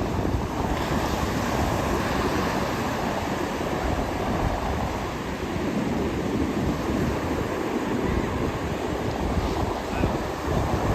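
Ocean surf washing and breaking along the shore as a steady rush of noise, with wind buffeting the microphone.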